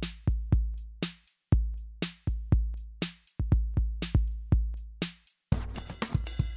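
Background music: an electronic drum-machine beat over a heavy bass, with short breaks about every two seconds and a busier pattern near the end.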